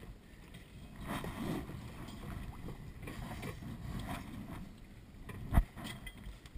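Water rushing against the hull of a small Sunfish sailboat under way, with light knocks and one loud, sharp knock on the hull about five and a half seconds in as the sailor shifts across the cockpit.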